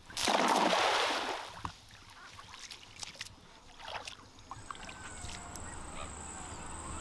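A loud rushing splash of water lasting about a second, then scattered small knocks and clicks, with steady high-pitched insect calls setting in about halfway through.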